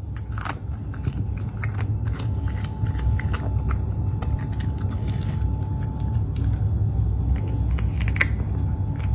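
A cat crunching and chewing raw cucumber chunks from its bowl, with many short crisp crunches throughout over a steady low rumble.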